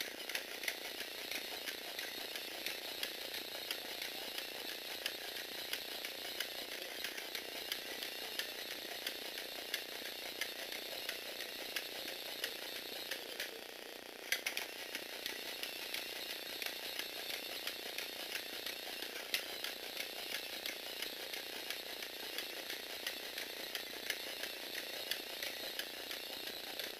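Lego Technic Power Functions motor driving a four-legged walking robot: a steady whir with fast clicking and rattling from its plastic gear train and legs. The whir drops off briefly about halfway through, then comes back with a sharp click.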